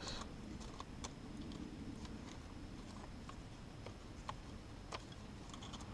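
Dry dead sticks clicking and ticking as they are pushed and wedged into the stick walls of a cage trap, a few sharp light clicks spread a second or so apart over a low, steady background rumble.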